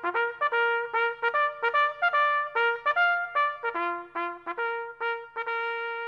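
Short solo trumpet jingle: a quick run of separate notes, then one long held note near the end.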